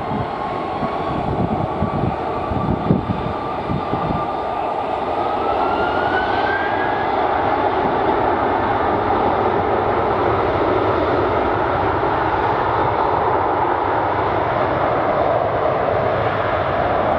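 Jet engines of an Airbus A330-300 at takeoff power: a whine rising in pitch over the first seven seconds, then a loud steady roar that grows a little fuller and holds.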